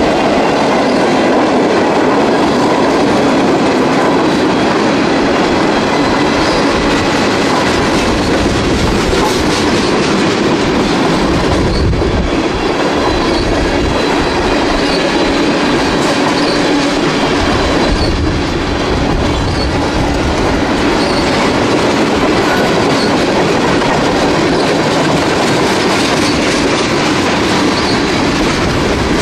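Railroad cars of a train rolling steadily past: a continuous, loud noise of steel wheels running on the rails.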